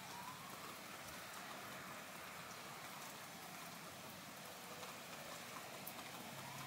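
Steady rain falling outside: a soft, even hiss with faint scattered drips.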